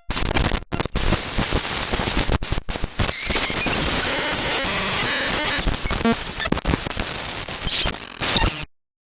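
Digital glitch sound effect: harsh static noise that stutters with several brief dropouts in the first few seconds, then runs on as a flickering crackle and cuts off suddenly near the end.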